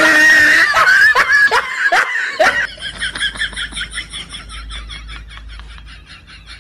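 A splash as someone falls into a pond, overlaid with laughter. The laughter goes on in quick, evenly repeated pulses and grows fainter toward the end.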